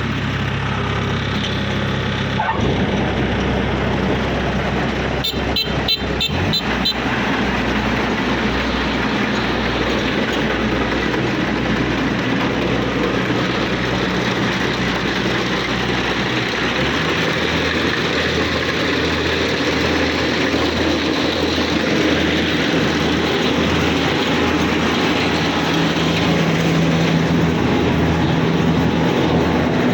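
Kubota DC-68G combine harvester's diesel engine running steadily, its hum shifting about two and a half seconds in and again about halfway through, with a short run of clicks around five to seven seconds in.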